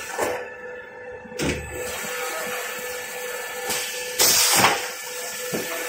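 Small toilet paper roll rewinding machine with colour-gluing lamination, running: a steady mechanical drone with a constant tone, broken by a few sudden clunks and a loud hiss about four seconds in.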